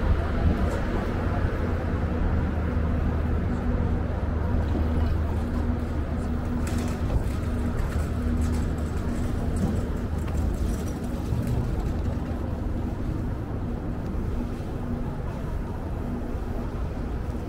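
City street ambience dominated by a steady low engine hum, as of a vehicle idling close by, over a general wash of traffic noise.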